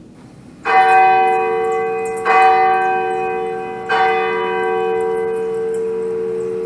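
A large bell struck three times, about a second and a half apart. Each stroke rings on with several held tones, and the deep hum of the bell carries on after the third stroke.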